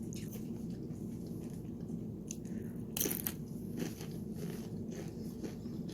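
A person chewing tortilla chips with cheese dip: irregular crisp crunches, the loudest about three seconds in.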